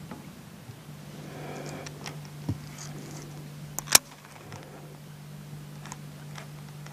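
Slap Happy Flap topwater plug being twitched across a still pond: soft splashing at the surface and a few sharp clicks, the loudest about four seconds in, over a steady low hum.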